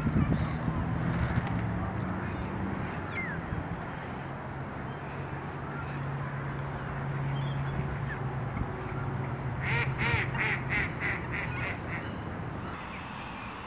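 Ducks quacking in a quick run of about seven or eight calls about ten seconds in, over a steady low hum and a few faint chirps of small birds.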